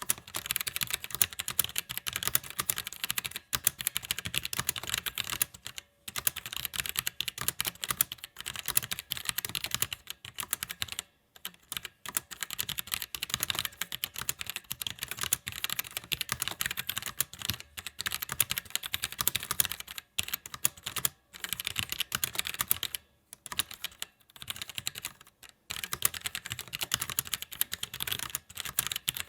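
Fast continuous typing on a Roccat Vulcan 122 AIMO mechanical keyboard with Titan Brown tactile switches and ABS keycaps, a dense run of key clacks broken by a few short pauses. The stock plate-mounted stabilizers give the long keys a rattle.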